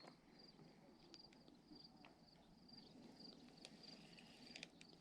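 Near silence: a faint high-pitched chirp repeating a few times a second, with a few soft clicks.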